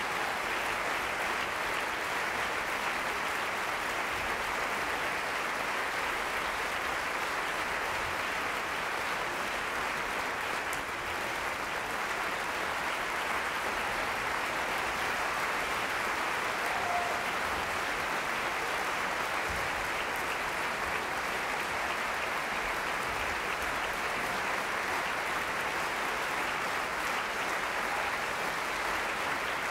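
Audience applauding steadily, an unbroken ovation of many hands clapping.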